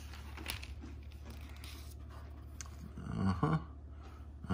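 Thin Bible paper pages rustling and being turned by hand, with soft scattered crackles, over a steady low hum. A short voiced sound, like a brief word or murmur, comes about three seconds in.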